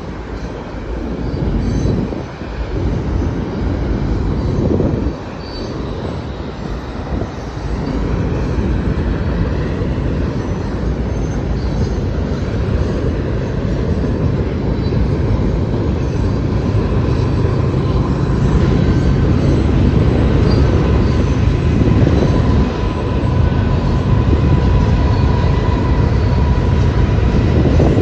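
Freight train cars rolling across a railway bridge: a continuous low rumble, with a faint steady wheel squeal coming in during the second half.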